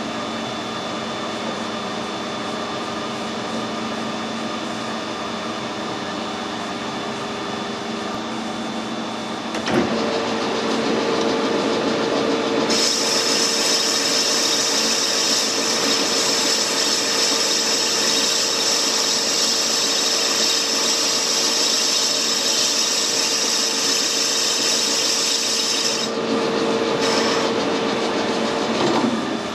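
Metal lathe running with a turning tool taking a 30 thou cut along a Tufnol (fabric-reinforced phenolic) gear blank held between centres. Over the steady hum of the lathe, a steady tone joins about ten seconds in, and a loud hiss of cutting follows a few seconds later and stops a few seconds before the end.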